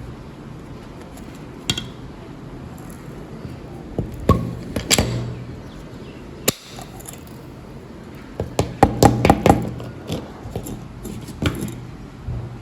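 Irregular sharp clicks and knocks of something being handled, with a quick cluster of them about nine seconds in, over a faint steady background.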